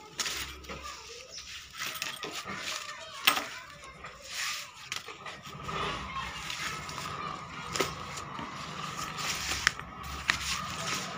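Hands handling a bag's fabric and metal zipper by a sewing machine: irregular rustling with a few sharp clicks and clinks spread through.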